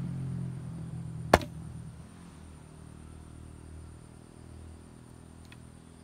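Dry wooden sticks knocking together once, sharply, about a second in as they are gathered into a bundle. Under it a low hum fades away early, and a faint high steady tone carries on throughout.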